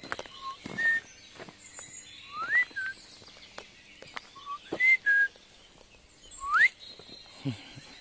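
A person whistling a series of short, clear notes, several of them sliding upward. Faint high bird chirps sound in the background.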